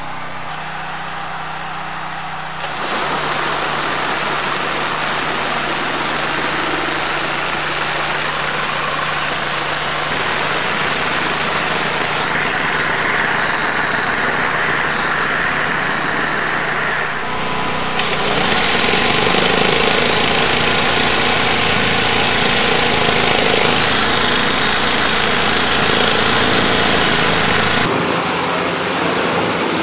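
High-pressure water jets from a wheeled rotating undercarriage washer (Mosmatic Hurricane) spraying hard against a car's underside and the pavement: a loud, steady hiss with a pump or motor running beneath. The tone changes abruptly several times.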